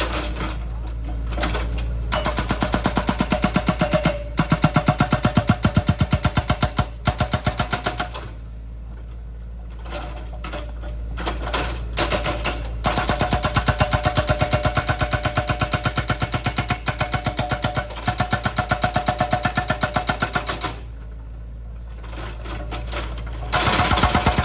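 Rapid, even mechanical clatter in long runs of many strokes a second, stopping and starting several times, with quieter spells between the runs.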